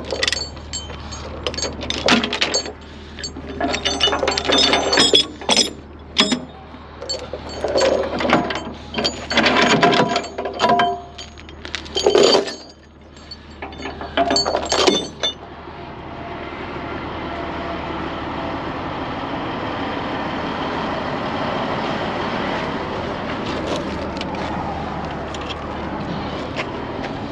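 Steel tie-down chains clanking and clinking in a long run of sharp metallic rattles as they are handled on a wooden trailer deck, over a steady low hum. About fifteen seconds in, the clanking stops and a steady, even rushing noise takes over.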